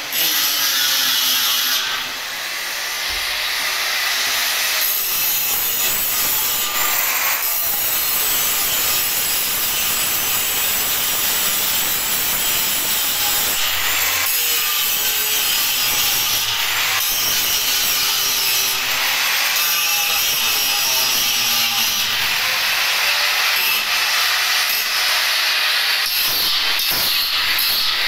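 Electric arc welding on a steel stair railing: a loud, steady harsh hiss whose texture shifts every few seconds.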